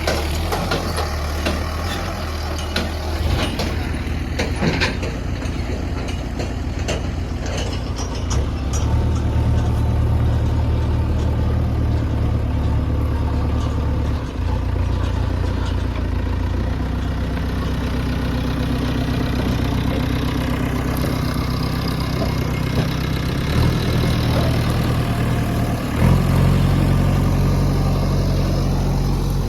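Diesel engine of a JCB 3DX backhoe loader running while it works, its note rising and falling with the load: it steps up about a third of the way in and climbs sharply near the end. Sharp clanks come through in the first several seconds.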